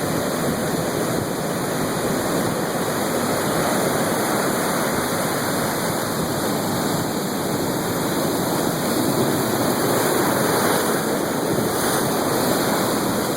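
Steady rushing of ocean surf and breaking waves, with no separate impacts.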